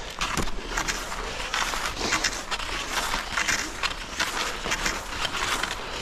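Cross-country skis swishing and scraping over groomed snow, with poles planting, in a steady stride rhythm of surges about every half second with sharp clicks mixed in.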